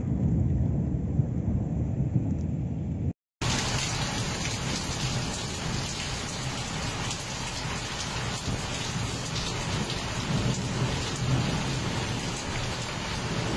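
Thunderstorm: a low rumble of thunder over rain, then after a sudden cut about three seconds in, heavy rain with a steady hiss and a faint rumble of thunder beneath it.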